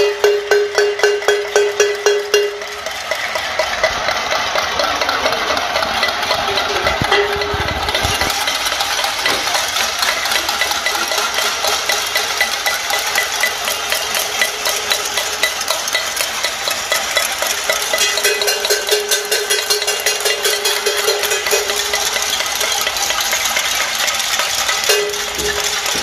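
Many cooking pots being beaten with spoons across surrounding apartment buildings in a cacerolazo, the pot-banging of a street protest, making a dense metallic clatter. At the start and again near the end, one close pot rings out under a fast, steady beat.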